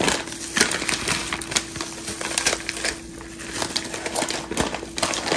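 Crinkling of a plastic freezer bag and disposable plastic gloves, with irregular clicks and rattles of frozen green peas dropping into a measuring cup. A steady low hum runs underneath.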